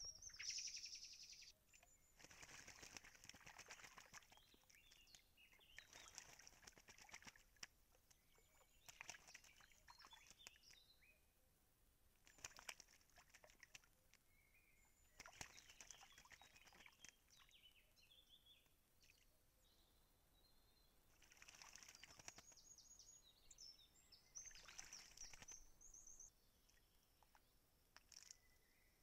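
Birds bathing in a shallow pool (a green woodpecker, a carrion crow and a mistle thrush in turn): repeated bursts of splashing and wing-fluttering in the water, each a second or two long, every few seconds. Faint short bird calls come in between.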